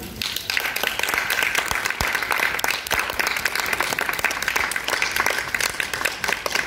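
Audience applauding, breaking out all at once and continuing as a steady patter of many hands clapping.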